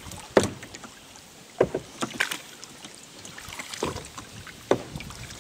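Kayak paddle blades dipping and splashing in the river: a handful of short, sharp splashes and drips at uneven intervals over a soft water hiss.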